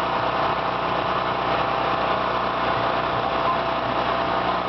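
A small engine running steadily at idle, a constant drone with no change in speed.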